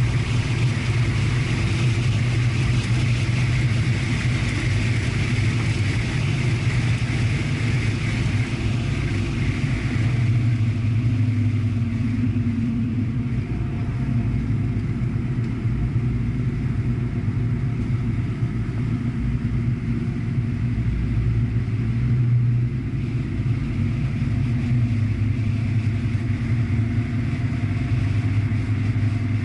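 Corvette V8 heard from inside the cabin, a steady low engine drone as the car slows from track speed to a crawl. Wind and tyre rush is strong at first and fades about ten seconds in, leaving mostly the engine.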